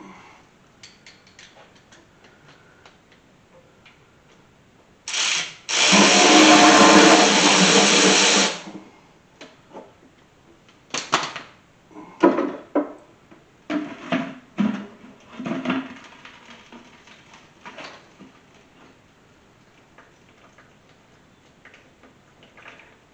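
A handheld power tool runs in two bursts, a short one about five seconds in and then a steady one lasting about three seconds. A series of sharp metallic clanks and knocks follows, as of tools and engine parts being handled.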